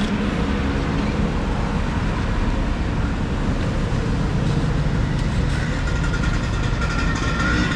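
Steady road traffic noise from passing vehicles.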